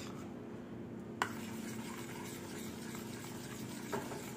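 Steel spoon stirring thick cocoa paste in a small steel bowl. The spoon clinks sharply against the bowl about a second in and more softly near the end, over a steady low hum.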